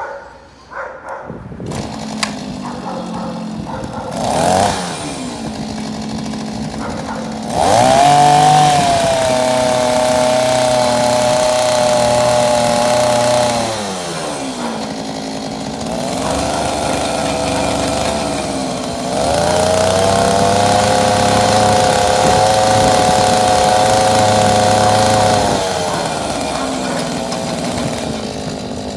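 Small two-stroke engine of a Ryobi RCVK-4200 mini cultivator, starting about two seconds in and idling. It is revved up twice, each time held at high speed for about six seconds before dropping back to idle.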